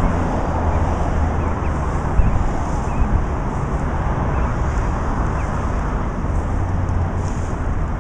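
Wind buffeting the microphone: a steady low rumble with hiss over it.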